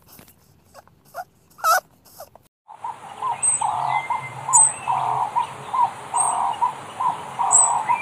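Animal and bird calls: a few short scattered squeaks, then, after an abrupt change about three seconds in, a steady chorus of calls repeating about once a second with high chirps over it.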